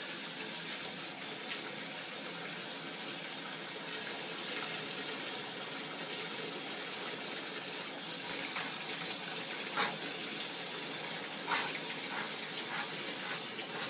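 Water running from a bathtub tap into the tub, a steady rushing sound, with a few faint short sounds over it in the last few seconds.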